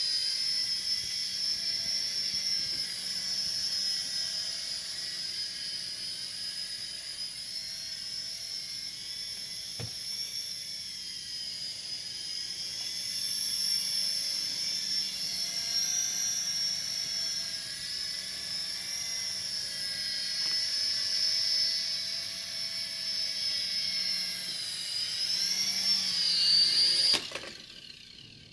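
Small electric rotor motors of a DEERC SQN040 Apache toy RC helicopter whining steadily in flight, the pitch wavering slightly as it holds its hover. Near the end the whine falls and cuts off as the motors stop.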